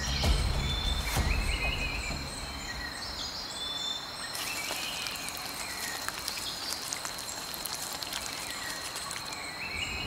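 Tropical forest ambience: a steady high-pitched insect drone, with short chirping calls coming and going over it.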